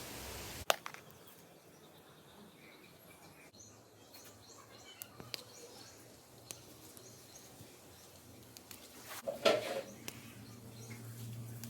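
Quiet outdoor garden ambience with faint, scattered bird chirps. There is a sharp click just under a second in, a short rustling burst about three quarters of the way through, and then a low steady hum.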